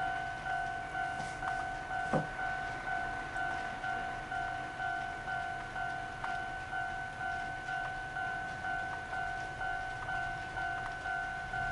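Japanese railway level-crossing warning bell ringing, a two-tone electronic ding repeating about twice a second: the signal that a train is approaching the crossing. A brief sharp sound breaks in about two seconds in.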